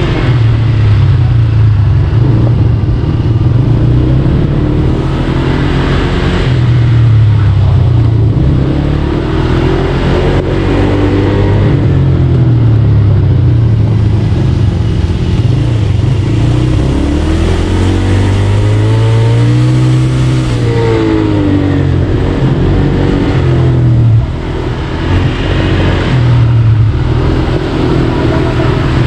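Four-wheel ATV buggy engine running under way, its pitch rising and falling again and again as the throttle is opened and eased off.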